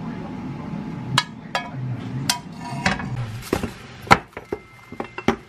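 A string of sharp clinks and knocks of kitchenware, first metal tongs against a frying pan and plate while serving stir-fried bulgogi, then a lidded glass container and a glass jar handled on a countertop. The loudest clink comes about four seconds in.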